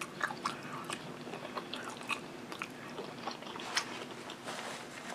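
A person chewing barbecued rib meat close to the microphone, with many small irregular mouth clicks.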